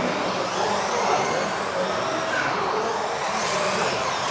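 Several electric RC off-road buggies racing in a sports hall, their motors whining and rising and falling in pitch as they speed up and slow down.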